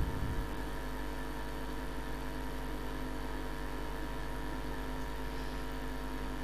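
Steady hum of a vehicle driving along an unpaved gravel road, heard from inside. A louder rumble dies away in the first half second.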